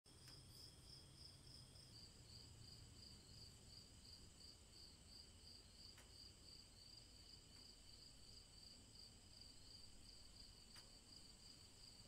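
Faint night crickets chirping in an even pulse of about three chirps a second, with a steady higher trill behind them.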